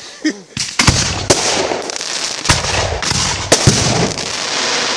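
Aerial fireworks going off: shells launching and bursting overhead. After a quieter first moment comes a string of sharp bangs, five or so, over a dense, continuous crackle.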